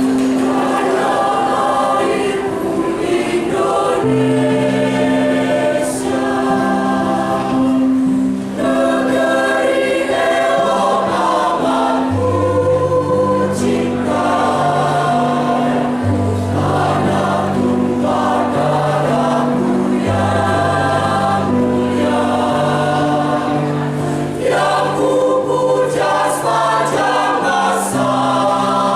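A choir singing in several parts over sustained low accompaniment notes that change pitch in steps.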